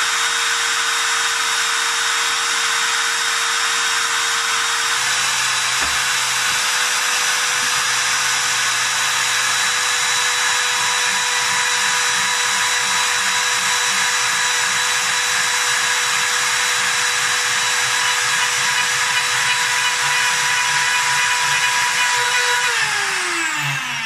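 Makita trim router, working as the spindle of a CNC machine, running at full speed with a steady high whine, with a lower hum coming and going. In the last second or two it winds down, its pitch falling as it coasts to a stop.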